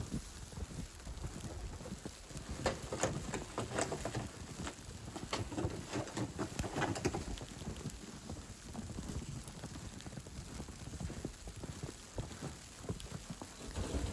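Footsteps crunching in fresh snow, most distinct in the middle stretch as an uneven series of crisp crunches, over a low rumble.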